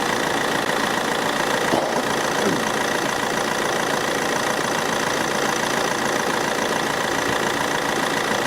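Car engine idling steadily with the air conditioning running, while refrigerant gas is being charged into the system from a refill can.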